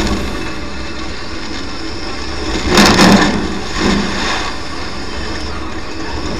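Engine and running-gear noise heard inside the cabin of an off-road race car driving over dirt, a steady rumble with two loud rushing bursts about three and four seconds in.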